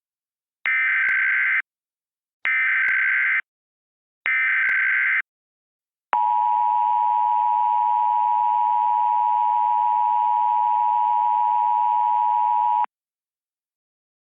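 Emergency Alert System tones: three one-second bursts of SAME header data, a shrill screeching chirp, then the EAS two-tone attention signal held steadily for about seven seconds before cutting off suddenly. Together they signal the start of an emergency alert broadcast.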